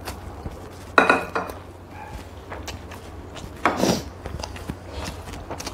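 Eating at a table: instant noodles and broth slurped from small bowls, with chopsticks and bowls clicking against each other. There are two louder moments, about a second in and again near four seconds.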